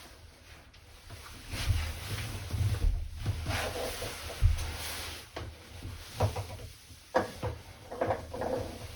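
Irregular handling noises: a series of knocks, clunks and rustles as objects are moved and set down.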